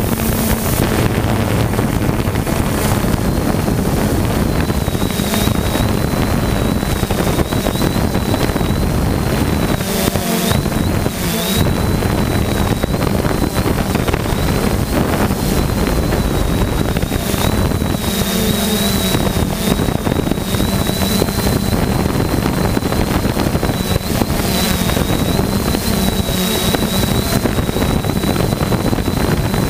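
Quadcopter drone's motors and propellers running in steady flight, heard through its own onboard camera: a steady high whine that wavers slightly, over loud wind noise on the microphone.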